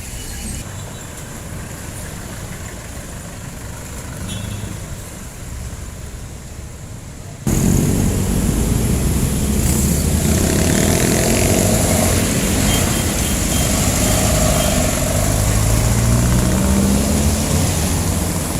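Jeepney diesel engines running in street traffic. About seven seconds in, the sound turns suddenly much louder, a close engine's low rumble with a rising pitch near the end.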